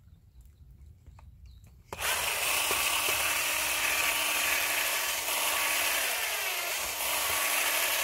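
Cordless drill running steadily as it bores a hole through a saddle fitting into the wall of a 50 mm plastic farm water pipe. It starts about two seconds in.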